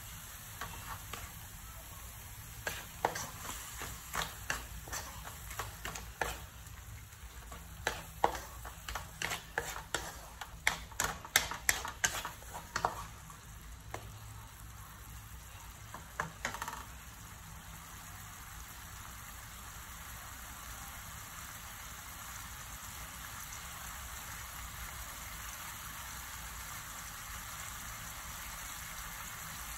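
A wooden spatula scrapes and knocks against a metal wok, stirring a sizzling tomato and minced-meat sauce, the strokes coming quickest just before the middle. A little past halfway the stirring stops and the sauce goes on sizzling steadily.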